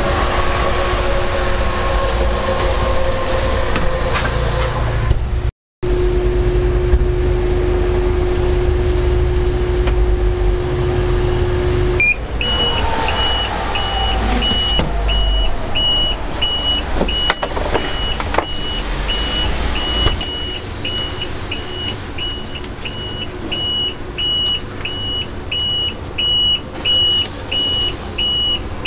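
Street traffic: vehicles pass with a constant low engine rumble. From about halfway through, an electronic beep repeats steadily a little under twice a second.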